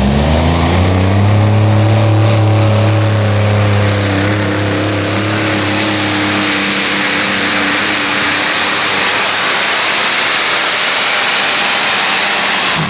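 Multi-engine modified pulling tractor's supercharged engines at full throttle under load as it pulls the sled. The engine note climbs in pitch for about a second at the launch, then holds loud and steady.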